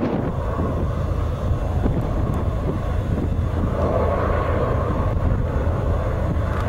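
Distant BNSF diesel locomotives of a container train, heard as a steady low engine drone, mixed with wind noise on the microphone.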